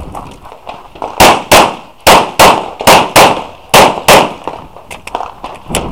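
Glock 34 9mm pistol firing eight shots in four quick pairs, starting about a second in, each shot a sharp crack with a short echo.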